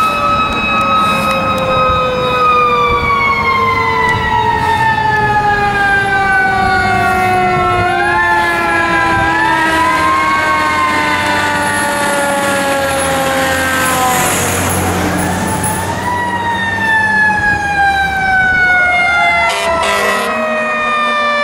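Fire truck's mechanical siren winding down in a long, slow falling tone, spun back up briefly several times, then coasting down again.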